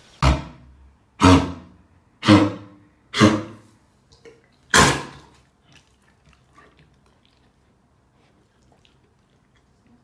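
Adult dog coughing with kennel cough: five harsh coughs about a second apart, the fifth after a slightly longer gap, then only faint small sounds.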